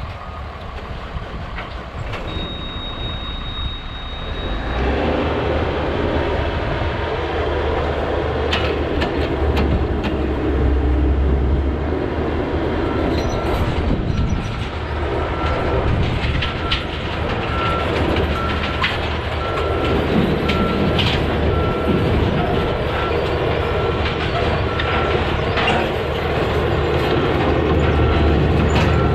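Caterpillar mini excavator's diesel engine idling, then throttling up about five seconds in as the machine tracks down a steel ramp, its steel tracks clanking and knocking. A high steady beep sounds for about two seconds before the throttle-up. From about halfway on, the travel alarm beeps steadily.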